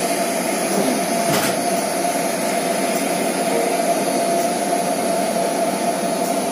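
Steady machinery hum with a constant mid-pitched whine and a hiss above it, unchanging throughout, with a faint tick about one and a half seconds in.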